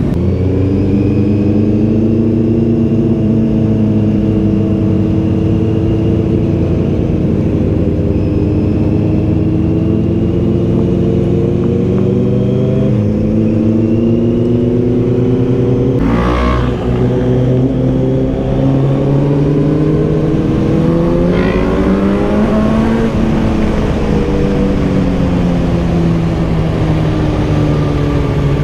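Motorcycle engine heard from on board while riding, its note rising and falling gently with throttle and gear changes. A short rush of noise comes about sixteen seconds in.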